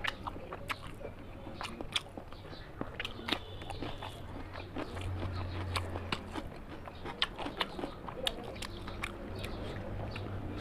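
Close-miked eating of curry and rice: chewing and biting with frequent irregular sharp, wet mouth clicks and smacks.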